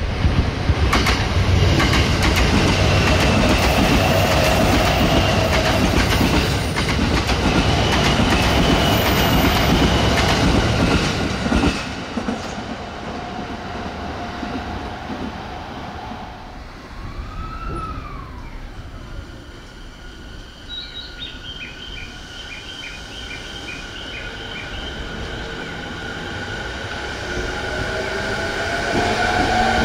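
Electric train passing at high speed, a loud, dense clatter of wheels over the rail joints for about twelve seconds before the noise drops away. Later a quick run of high ringing pulses sounds, and near the end a rising whine grows louder as another train approaches.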